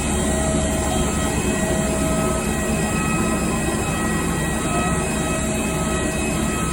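Airport apron shuttle bus running, heard inside the cabin: a steady engine and road rumble with a faint whine that fades in and out.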